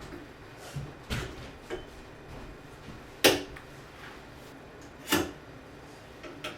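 A handful of separate short knocks and clunks from objects being handled and set down, the loudest about three seconds in.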